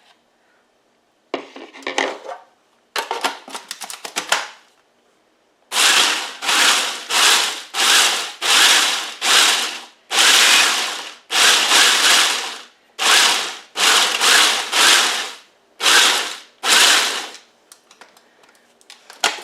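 Food processor pulsed in about fourteen short bursts, a second or less each, churning crushed pretzel crumbs with melted butter and brown sugar into a crust mixture.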